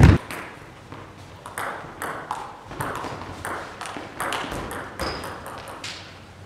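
Table tennis rally: the plastic ball clicking off the rackets and the table about three times a second, with a hall echo after each hit. A loud knock right at the start.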